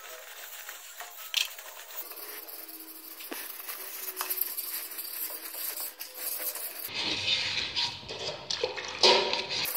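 Sandpaper rubbed by hand over the primed spokes and rim of an alloy wheel, a scratchy rubbing that grows louder and fuller about seven seconds in.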